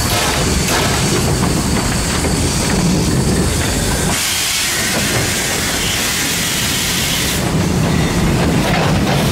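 Steam train rolling past, its coaches' wheels rumbling and clattering on the track, with a hiss of steam lasting about three seconds midway.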